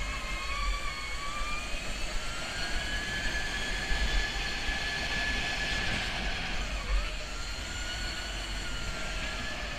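Go-kart driving at speed, its motor whining in a pitch that glides up and down with speed and drops sharply through a corner about seven seconds in before climbing again. Wind buffets the microphone with a low rumble.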